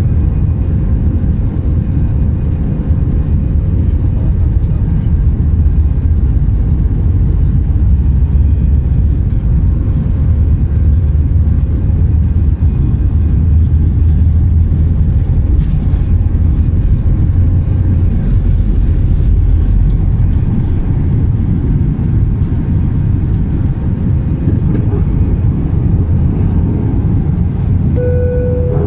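Cabin noise of a jet airliner on its takeoff roll: the engines running at takeoff thrust over a steady low rumble from the runway, with a thin steady engine tone above it.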